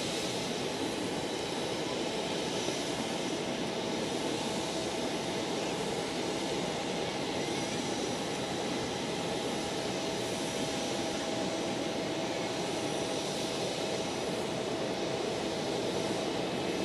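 Steady running noise of jet airliners on an airport apron: an even rushing hum with a held high whine on top.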